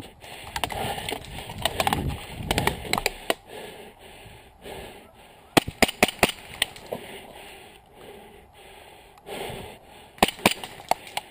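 Gear rustling and shuffling, then two quick runs of sharp airsoft gunfire cracks, about four or five a second, around the middle and again near the end.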